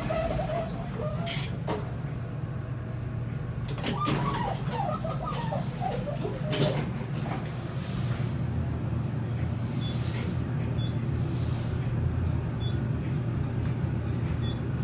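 Urban traction elevator: the cab's sliding doors close near the start, then the car rides upward with a steady low hum. A few faint, short high beeps come in the later half.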